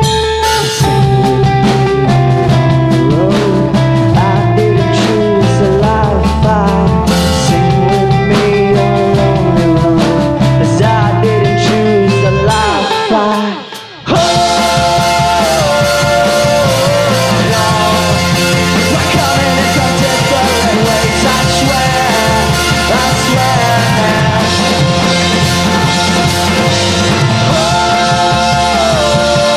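Alternative pop-rock band playing live: electric guitar, bass and drums, with a sung melody. About halfway through the band drops away for a moment, then the full band comes back in with cymbals.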